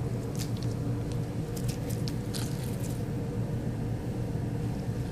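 Soft sticky squelches and crackles of cross-linked PVA–borax slime being squeezed in the hand, a handful of short ones in the first three seconds, over a steady low hum.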